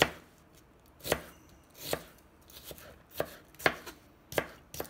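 Chef's knife slicing a red onion into long strips on a plastic cutting mat: about eight separate cuts at an uneven pace, each ending in a sharp knock of the blade on the board.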